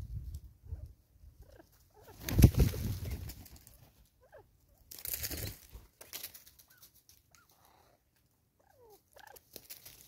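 Natal spurfowl at close range: two loud, harsh bursts, the first about two seconds in and the louder, the second about five seconds in, with faint short chirps of other birds in between.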